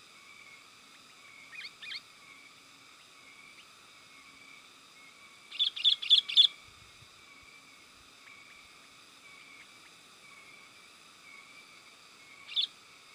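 Sooty-headed bulbul calls: two short notes, then a quick loud run of four notes a few seconds later, and one more note near the end, over a steady high background drone.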